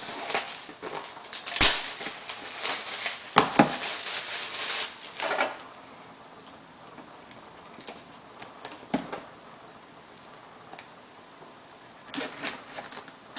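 Hands opening a sealed trading-card box: crinkling, rustling packaging with a few sharp clicks and taps for the first five seconds or so, then a quieter spell with scattered taps, and more rustling near the end.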